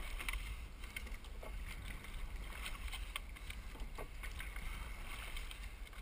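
Double scull under way: a steady rumble of wind on the microphone, with a few scattered knocks and splashes from the oars and water.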